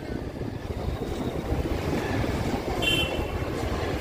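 Wind buffeting the microphone over a steady low rumble of street traffic while riding along a busy road. A short, high-pitched horn beep sounds about three seconds in.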